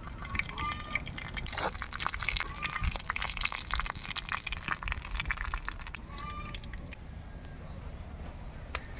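Hot frying oil sizzling and spattering in a clay pot over a wood fire, a dense crackle that thins out about six seconds in.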